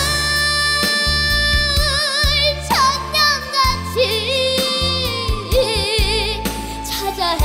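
Young girl singing a Korean trot ballad live into a microphone, holding long notes with a wide vibrato over a band accompaniment with a stepping bass line.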